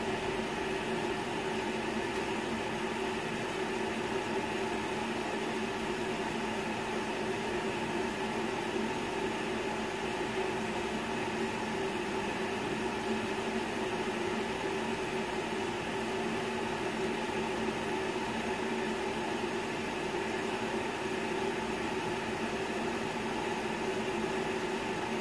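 Cooling fans of two Cisco Catalyst 3750G network switches running at high speed while the switches boot. It is a steady whirring with a low hum and a few constant tones, about 60 dB on a meter held over them.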